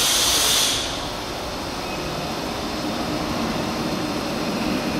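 Saitama Railway 2000 series subway train pulling into the platform: a loud hiss cuts off about a second in, leaving a steady low rumble as the train rolls slowly to a stop.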